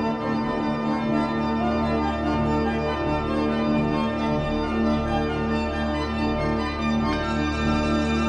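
Organ music: slow, sustained chords held steadily, with a deep bass note sounding beneath them.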